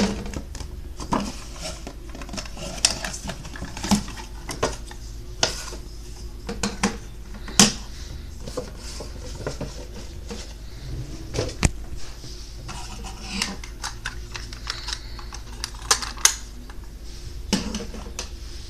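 Irregular clicks, taps and knocks from a plastic Crocodile Dentist toy and its cardboard box being handled on a wooden desk.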